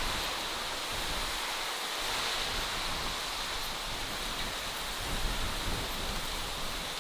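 Steady outdoor natural ambience, an even hiss with no distinct events, with low wind rumbles on the microphone swelling about five seconds in.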